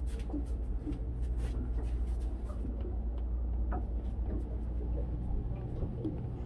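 Steady low hum of a yacht cabin, with a number of light clicks in the first few seconds and faint scattered sounds in the background.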